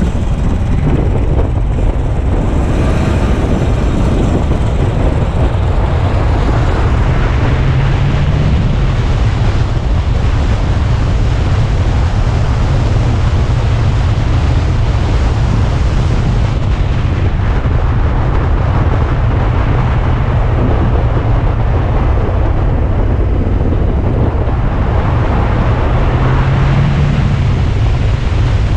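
Alfa Romeo Spider driving down a mountain road: engine and road noise under heavy wind rumble on the microphone. A low hum rises briefly twice.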